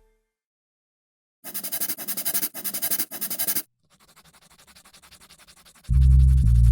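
Graphite pencil scratching back and forth on paper in quick, even strokes, about six a second: loud for about two seconds, then fainter. Bass-heavy music starts near the end.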